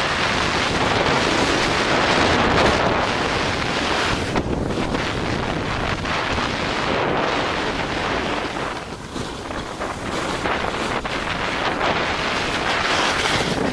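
Wind rushing over the microphone of a camera carried down a ski run at speed: a loud, unsteady rush that dips briefly about nine seconds in.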